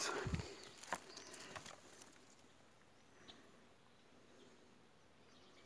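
Footsteps and rustling through dry leaf litter and undergrowth, with a few sharp crackles in the first two seconds, then only faint background.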